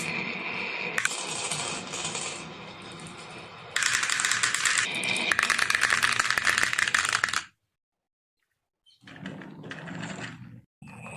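Glass marbles rolling and clattering down a wooden marble run, a dense run of rapid clicks and rattles that stops suddenly about two-thirds of the way in. After a moment of silence, softer clattering returns near the end.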